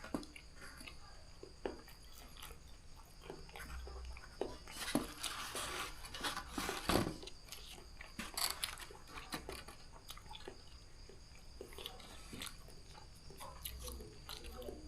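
A person chewing a mouthful of spicy noodles mixed with tempeh close to the microphone, with wet mouth clicks and crunchy bites, busiest in the middle.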